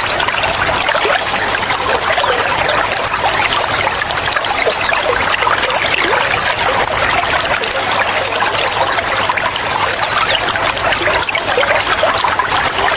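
Steadily running, trickling water, with a small bird breaking in three times with quick series of high chirps.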